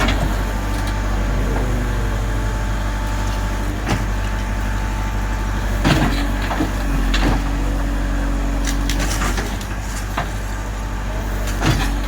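JCB backhoe loader's diesel engine running steadily, with occasional short knocks and clanks from the machine at work.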